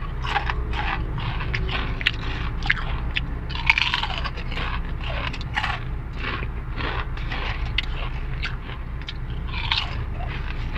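Crunching and chewing of Mister Potato sweet potato crisps in a mouth, picked up close on a clip-on microphone: many short sharp crunches throughout, over a steady low hum.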